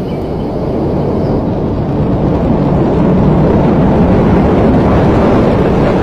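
Launch noise of Space Shuttle Discovery's two solid rocket boosters and three main engines during ascent: a steady, deep rumble that grows louder over the first three seconds, then holds.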